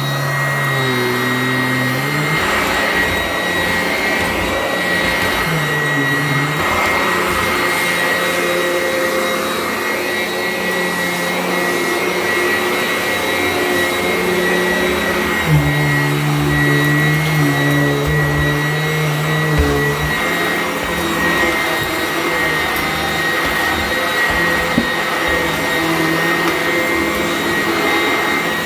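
Sanitaire upright vacuum cleaner running steadily with a high motor whine; its lower hum shifts in pitch several times, and there are a few brief knocks.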